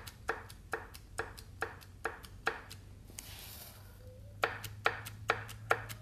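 The number 3 connecting rod of a torn-down small-block Chevy 350 clacking against its crankshaft journal as it is rocked back and forth by hand: sharp metallic clicks about three a second, a pause of nearly two seconds, then faster clicking. The looseness comes from a spun number 3 rod bearing, the cause of the engine's rod knock.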